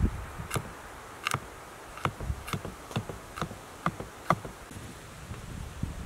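Knife chopping onion on a wooden cutting board: sharp, irregular knocks about twice a second, stopping a little after four seconds.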